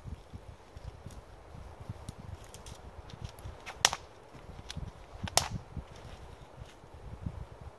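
Dry dead branches being snapped by hand: two sharp cracks, about four and five and a half seconds in, with lighter crackles and rustling between.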